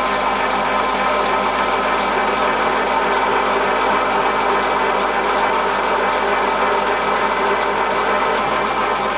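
Vertical milling machine running steadily with a constant gear and motor whine as the cutter is fed by hand into a metal cylinder block. A high-pitched squeal from the cut comes in near the end.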